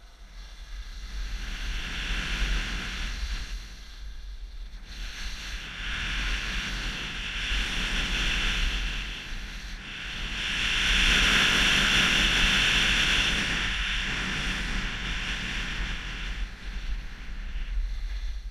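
Skis sliding and scraping over groomed snow on a downhill run, with wind rumbling on an action-camera microphone. The hiss of the skis swells and fades several times, loudest in the middle stretch.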